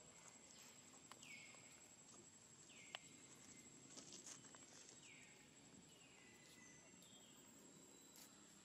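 Faint outdoor ambience: a bird's short call falling in pitch, repeated about five times, over a steady, thin, high whine, with a few faint clicks.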